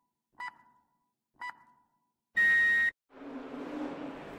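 Race-start countdown beeps: two short beeps a second apart, then a longer, higher-pitched go beep, the loudest sound. A steady rushing noise with a low hum follows as the race gets under way.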